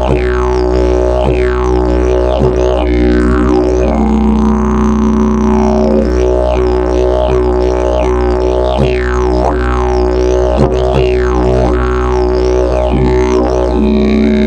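Fiberglass and prickly pear fibre double-slide didgeridoo played as a steady low drone, its overtones swept over and over in falling, vowel-like glides shaped by the player's mouth. A brighter held tone joins the drone about four seconds in and again near the end.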